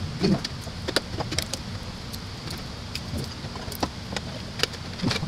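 Hard plastic clicks, taps and rattles of a Philips masticating juicer's juicing unit being twisted and fitted onto its motor base, irregular and scattered, over a steady low background rumble.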